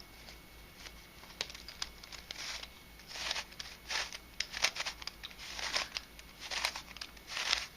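3D-printed nylon Unbandaged Helicopter Skewb being turned by hand: a series of short scraping clicks as the plastic pieces slide against each other, about eight or nine separate turns.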